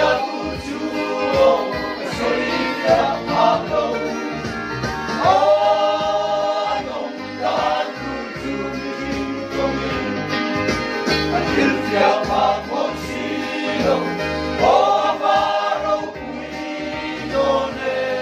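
A group of men singing a hymn together as a choir, with several long held notes.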